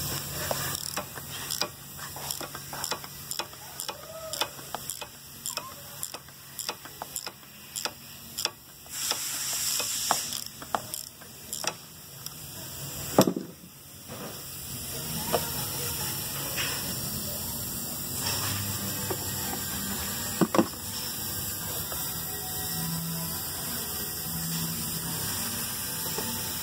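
A ratchet clicking in a long run of irregular strokes while loosening the oil filter housing cap, then a loud clunk about halfway through. After that comes a steady trickling hiss as oil drains and drips from the filter housing, with one more knock.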